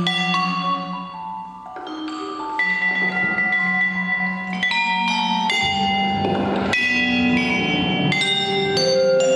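Vibraphone played with mallets, struck notes ringing on and overlapping, together with a pre-recorded electronic tape part, over a pulsing low tone. Loudness dips briefly about one and a half seconds in, and a swell of noise rises and fades around six to seven seconds in.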